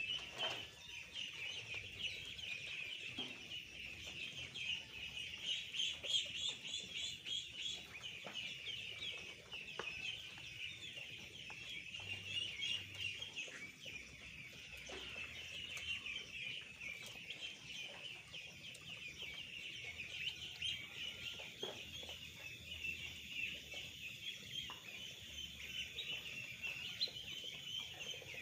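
A flock of two-week-old ducklings peeping continuously, many high chirps overlapping.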